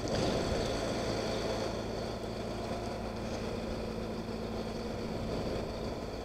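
A vehicle engine idling steadily, a low even hum that fades slightly toward the end.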